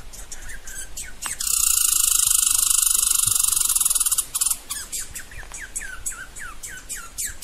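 Small birds calling: a loud, very fast buzzing trill for about three seconds, then a run of short, falling chirps several a second. Scattered light clicks come before the trill.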